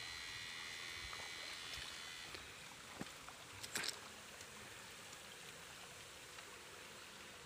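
Faint flowing river water, with a steady high electrical whine that stops a little over two seconds in. A click about three seconds in and a brief noise near four seconds.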